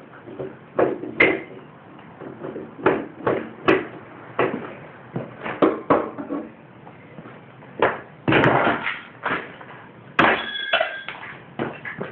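Irregular metallic knocks and clanks from hand tools working on a lawn mower engine, with two louder, ringing clangs in the second half.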